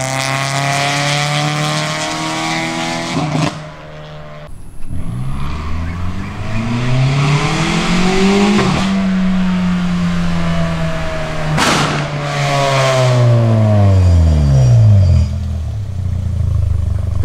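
Toyota Vios NCP150's four-cylinder engine heard through a Kakimoto GT Box Hyper Rev aftermarket exhaust as the car drives past several times. The exhaust note climbs in pitch, holds steady, then falls away as the car goes by. The sound breaks off abruptly for about a second a few seconds in.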